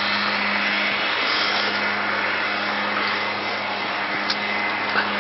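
A steady rushing, motor-like noise with a low hum under it, unchanging throughout, and a faint click near the end.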